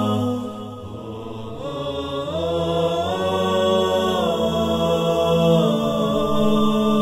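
Intro music: a vocal chant sung in long, held, harmonised notes that step up in pitch about two seconds in and settle back down near the end.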